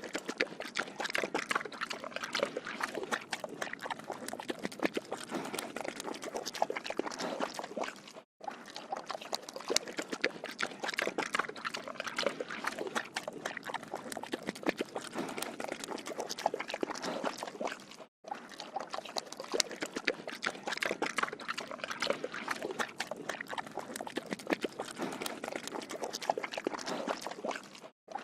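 A pig drinking water: a continuous run of wet slurping and lapping, broken twice by very short gaps.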